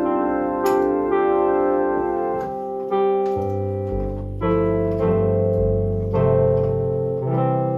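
Electronic keyboard playing slow sustained chords with a piano-like voice, changing chord about every second, with deep bass notes coming in about halfway through.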